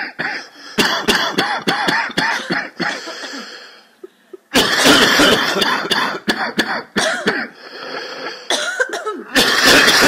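A chorus of many overlapping coughs in dense clusters, with a short lull about four seconds in before the coughing starts up again, loudest in the middle.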